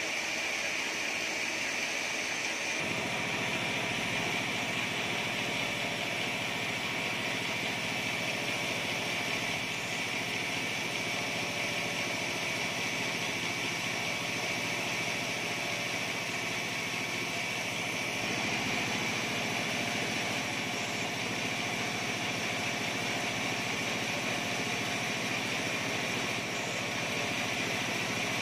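Bandsaw sawmill running steadily without cutting, a machine drone with a steady high whine. A deeper hum joins about three seconds in.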